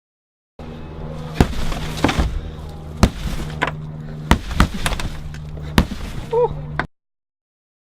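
About six sharp knocks or bangs, unevenly spaced, over a steady low hum, with a short high squeak near the end.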